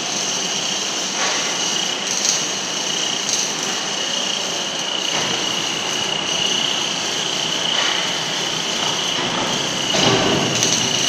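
Welding turning rolls running: electric drive motors and worm gearboxes give a steady high whine over a hiss, with a few faint knocks.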